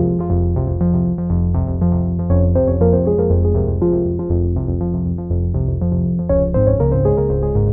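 Background music: a synthesizer and electric-piano tune with held notes over a bass line.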